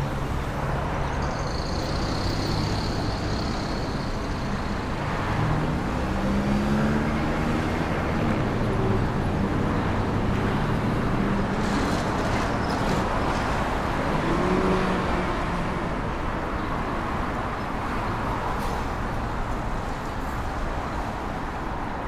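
City street traffic: a steady wash of passing cars and engine noise. About five seconds in, one vehicle's engine drones louder for several seconds. A faint high tone sounds near the start.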